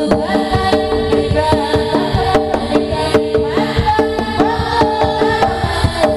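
Live East Javanese jaranan gamelan music accompanying a Bantengan dance: hand drums beat a quick, busy pattern under held pitched notes and a high melody that slides between pitches.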